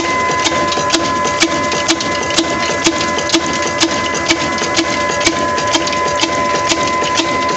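Old 26 HP desi diesel engine with a big flywheel, running steadily under load driving a chakki flour mill. A sharp knock comes about twice a second over a continuous mechanical clatter and a steady whine.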